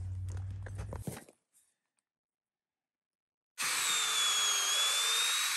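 Cordless drill running from about three and a half seconds in, its steady whine dipping slightly in pitch under load and recovering as it drives a screw into wood.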